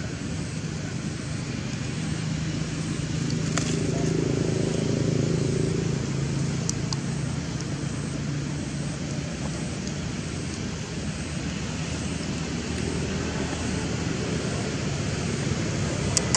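Steady outdoor background noise with a low hum that swells for a few seconds near the start, and a few faint clicks.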